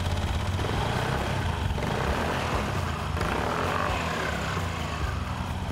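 Suzuki Address V125G scooter running, a steady engine drone under a loud rush of noise that starts just before and cuts off right at the end.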